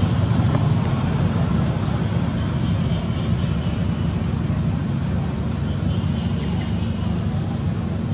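Steady low rumble and hiss of outdoor background noise, with a few faint high chirps.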